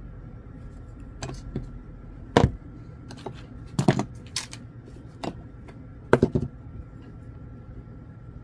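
Irregular sharp taps and clicks of small objects being handled on a desktop, about eight in all. The loudest come about two and a half, four and six seconds in.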